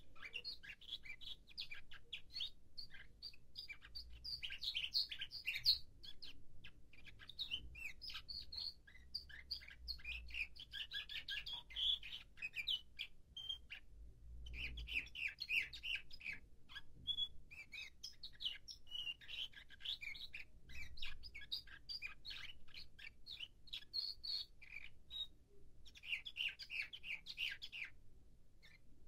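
Nightingale-song canary, a young male, singing long runs of rapid chirps and trills in several phrases broken by a few short pauses. It is practising in the tertip stage, when the bird is still putting its song in order.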